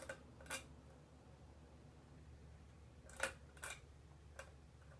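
1992 Heritage Lancaster ceiling fan's motor humming low and steady, with several sharp clicks as its pull-chain speed switch is worked through to high.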